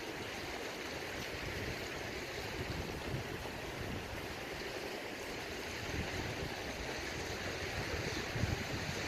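Steady rush of wind and water lapping at the shore, with low wind gusts buffeting the microphone more in the second half.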